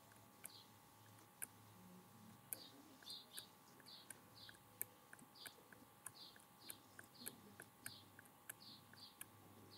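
Faint bird chirping: short falling chirps repeating about two or three times a second, with scattered light clicks over a faint steady hum.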